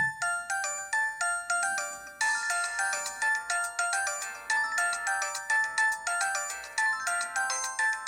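LG-SH810 mobile phone ringtone playing: a synthesized melody of quick, short notes that starts suddenly after a brief pause, with a fuller accompaniment joining about two seconds in.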